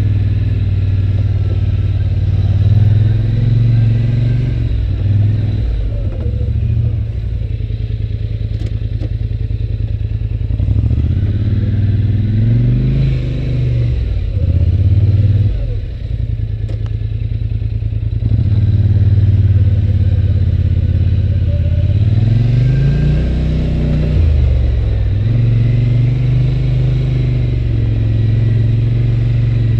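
Engine of a 2011 Polaris Sportsman 850 Touring ATV, a twin-cylinder, running under way. Its pitch rises and falls several times with the throttle.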